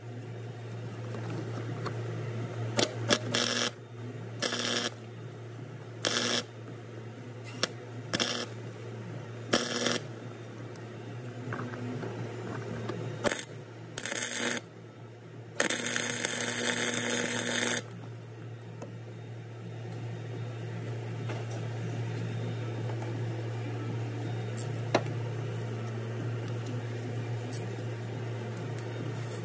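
Harbor Freight flux-core wire welder laying a series of short tack welds onto broken exhaust manifold bolt stubs on an LS V8. The arc crackles in about eight brief bursts, then once for about two seconds, over a steady low hum.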